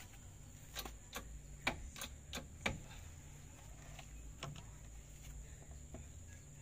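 Lug wrench working the wheel nuts of a car's alloy wheel: a string of sharp metal clicks and clinks, about six in quick succession over the first three seconds, then a few fainter ones.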